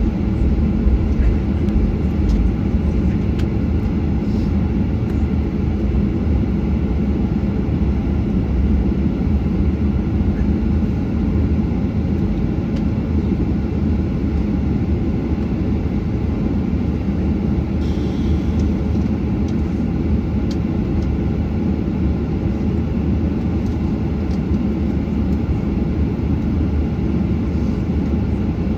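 Steady cabin noise of a Boeing 737-800 in flight: an even, low-heavy rumble of the jet engines and airflow, holding level throughout.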